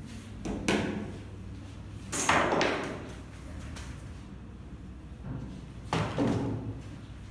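Three short knocks, each trailing off in a rustle, from a large sheet and wooden roller bar being handled on a wooden easel. The first comes about a second in, the loudest a little after two seconds, and the last about six seconds in.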